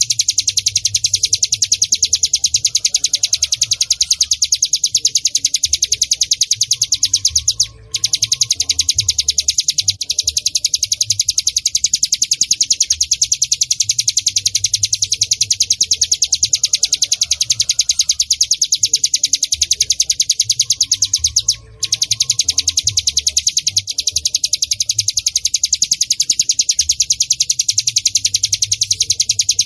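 Ciblek gunung (cigun) song: a very fast, unbroken run of high-pitched chipping notes, stopping for a moment twice. A faint low rumble lies underneath.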